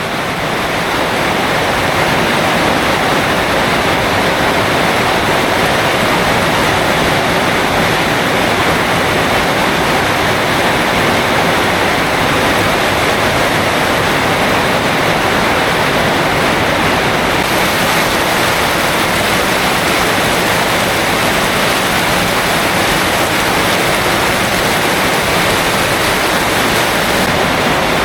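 Heavy tropical downpour: a dense, steady roar of rain that does not let up.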